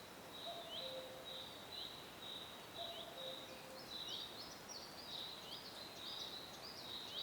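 Birds calling over a faint hiss: a steady run of short, high chirps that grows busier about halfway through, with a lower two-note call twice in the first half.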